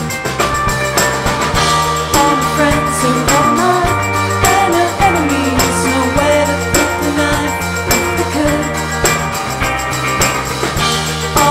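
Live rock band playing: electric guitar over a steady drum-kit beat, with a melodic line that bends up and down through the middle.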